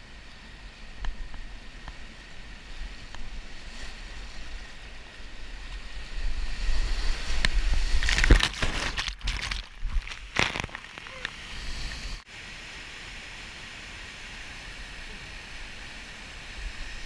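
Rushing whitewater of a boulder-strewn mountain river heard close on a kayaker's camera, with splashing that grows louder and choppier in the middle. About twelve seconds in it drops abruptly to a steadier, quieter rush.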